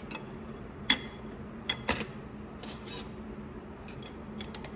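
Scattered light metallic clicks and clinks from an E4OD overdrive drum assembly being turned and handled by hand on a steel workbench, over a faint steady hum.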